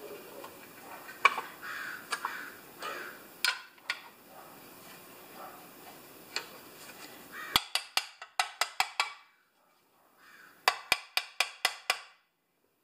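Light clatter of small parts being handled, then two quick runs of sharp ringing clicks, about five or six a second, from a ratcheting hand tool being worked to drive screws into the chainsaw housing.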